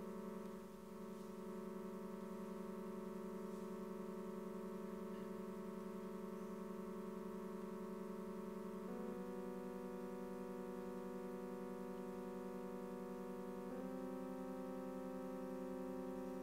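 Electronic keyboard holding a sustained, steady synthesizer chord that shifts to a new chord about nine seconds in and again near the end.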